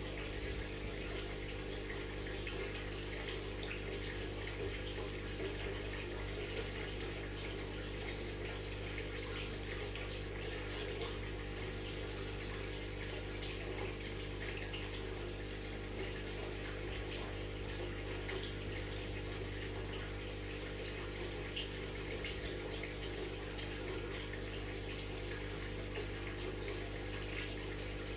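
Aquarium water splashing and bubbling steadily over the constant low hum of the tank's filter pump.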